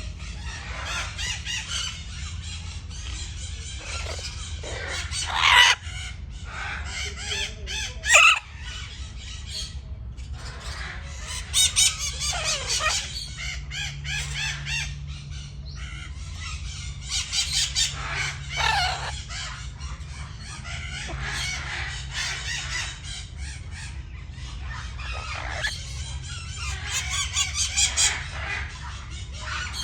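A flock of parrots chattering and screeching over one another, with louder shrill squawks about five and a half, eight, twelve and nineteen seconds in. A steady low hum runs underneath.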